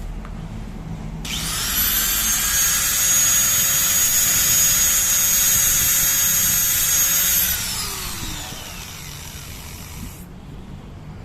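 Electric grinder grinding a piston ring to fit. It starts about a second in, runs with a steady high whine for about six seconds, then is switched off and winds down with falling pitch.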